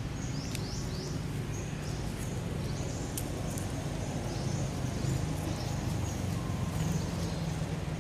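Forest ambience: small birds giving short, high chirps again and again over a steady low rumble.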